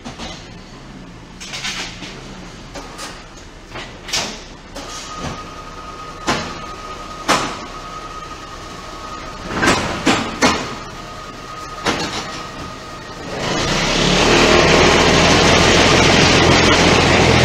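QT6-15 concrete block-making machine at work: scattered metal clanks and knocks, with a thin steady whine in the middle. About two-thirds of the way in it changes to a loud, steady running noise with a low hum under it.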